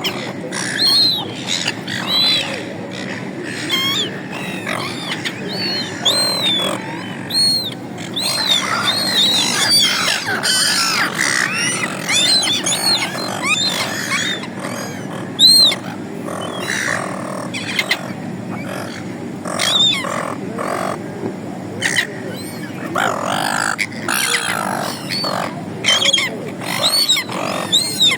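A flock of silver gulls calling: many short, harsh squawks, repeated and overlapping, thickest in the middle.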